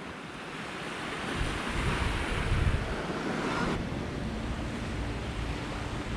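Small waves washing onto a sandy beach, with wind rumbling on the microphone. About four seconds in, the surf sound cuts off abruptly, leaving wind noise and a faint steady hum.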